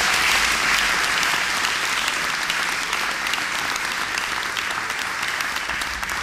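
Audience applauding, many hands clapping together, tailing off slightly toward the end.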